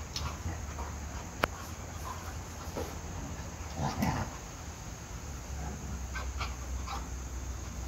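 Two dogs play-mouthing each other while lying down: a short low grumble about four seconds in and a few light clicks, over a steady low hum.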